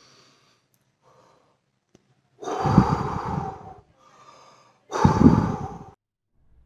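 A person breathing heavily and audibly: two loud, rough breaths of about a second each, with fainter breaths before and between them.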